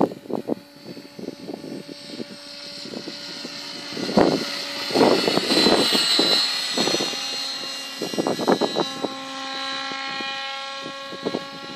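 Radio-controlled helicopter flying: a high rotor and motor whine that swells and fades as it moves about, with irregular bursts of noise on the microphone.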